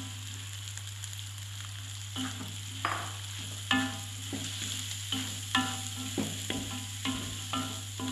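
Stir-frying in a metal wok: chopped mustard-green stems sizzling with egg and spice paste while a spatula scrapes and knocks against the wok. From about two seconds in, the knocks come roughly once a second, each ringing briefly.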